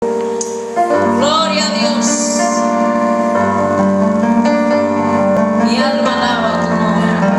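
Keyboard music: held chords.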